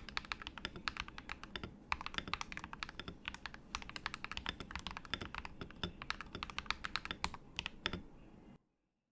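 Fast typing on an MK870 mechanical keyboard with Akko Vintage White switches and PBT keycaps: a steady, dense run of key clicks, several a second, that cuts off suddenly about eight and a half seconds in.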